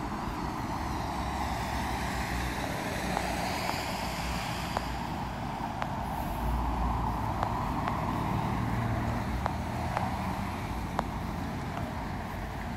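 Street traffic noise: road vehicles running and passing, with one vehicle sweeping past a few seconds in. Light ticks of footsteps on the asphalt are scattered through it.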